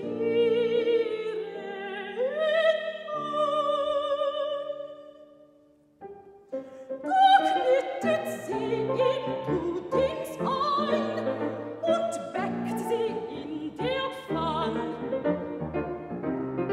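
Soprano singing a German art song (Lied) with wide vibrato, accompanied by a grand piano. A long held note dies away about six seconds in, a short pause follows, then voice and piano start again with livelier, more frequent piano chords.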